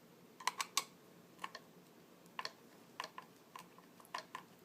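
Irregular light clicks and taps, a dozen or so, from hand work on a NutriBullet blender's plastic base: parts and a tool being handled during disassembly.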